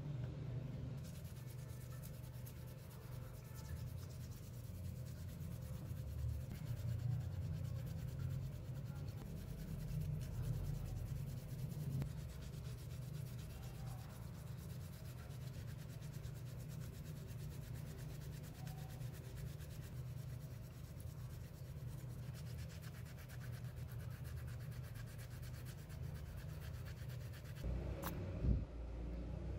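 Scrubbing the rubber grip handles of a pair of pliers in soapy water by hand: a steady, scratchy rubbing. A single sharp knock near the end.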